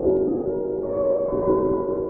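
Ambient synthesizer music: several sustained tones layered together, some sliding in pitch.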